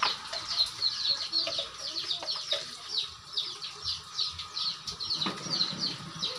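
Chicks peeping continuously, many short falling calls a second, over a low sizzle of oil frying in the wok.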